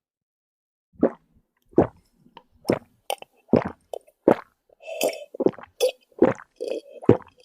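A run of about a dozen short wet gulping sounds, someone swallowing a drink in quick gulps, coming faster in the second half.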